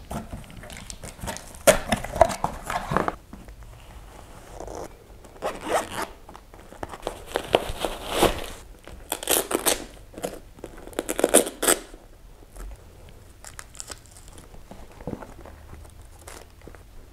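Plastic packaging rustling, crinkling and tearing as a parcel is unwrapped by hand, in about five loud bursts of a second or so each, quieter after about twelve seconds.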